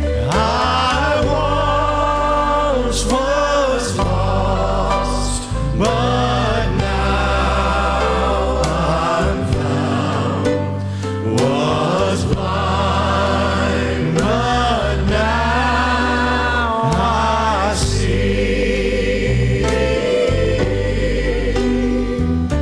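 Gospel music: voices singing long held notes over instrumental accompaniment with a steady bass.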